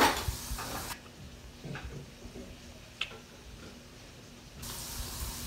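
Close-up eating sounds of fried calamari and rice: a loud crisp crunch right at the start, then quieter chewing with a sharp click about three seconds in.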